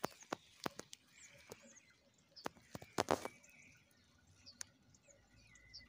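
Dry reed stems crackling and snapping in sharp clicks, loudest in a burst about three seconds in, with faint small-bird chirps in the background.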